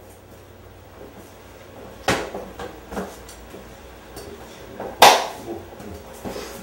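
Two sharp knocks or bangs about three seconds apart, the second louder, with a few lighter clicks and clatter around them over a low steady hum.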